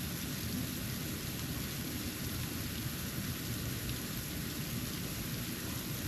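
Steady hiss of snow falling, over a low, even rumble.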